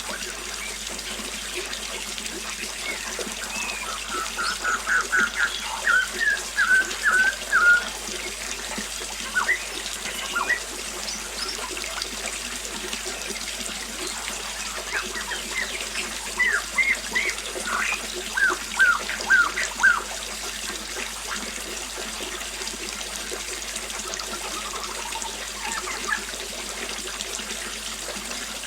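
Small waterfall splashing steadily, with a bird singing two phrases of quick repeated notes: one a few seconds in and another past the middle.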